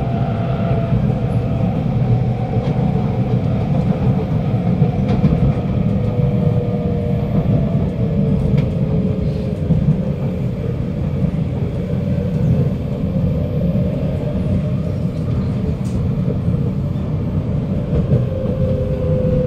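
Kawasaki Nippon Sharyo C751B metro train heard from inside the carriage: a steady rumble of wheels on track with the whine of its traction motors, which falls slowly in pitch as the train slows.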